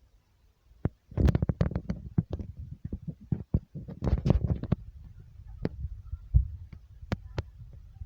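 Earthquake shaking: a low rumble with a rapid clatter of knocks and rattles, starting about a second in and thinning to scattered knocks over the last few seconds.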